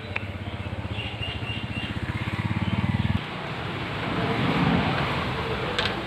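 An engine running with a fast low throb that grows louder and cuts off abruptly about three seconds in, followed by a rushing noise. A few faint high chirps sound about a second in.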